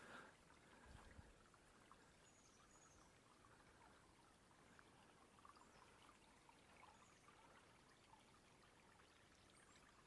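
Near silence: the faint, steady trickle of a small forest stream, with a few faint high bird chirps.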